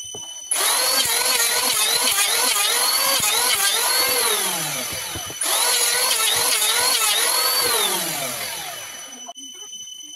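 Electric hand planer cutting along the edge of a board, its motor pitch wavering under the load. It runs for about five seconds, stops briefly, starts again for about four more, then winds down.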